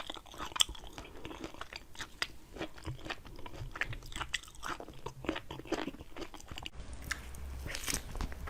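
Close-up crunchy chewing and biting of fresh raw produce, a rapid irregular run of crisp crunches.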